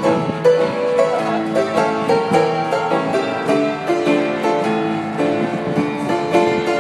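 Upright piano played at a fast clip: a quick melody of changing notes over chords, played without a break.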